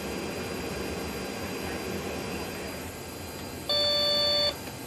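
A single loud electronic beep, held for just under a second, sounds from the C-17 Globemaster III's flight deck alerting system about three and a half seconds in, over the steady noise of the flight deck.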